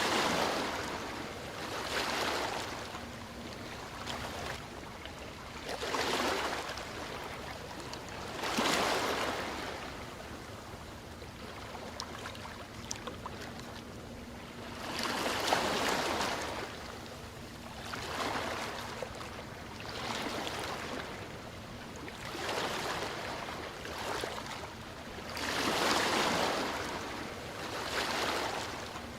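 Ocean waves breaking and washing on a shore, surging up and falling back again every two to three seconds.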